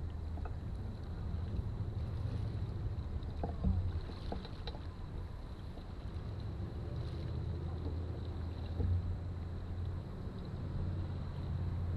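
Canoe under way with paddle strokes and water moving along the hull, over a steady low rumble of wind on the microphone. A sharper knock comes about four seconds in.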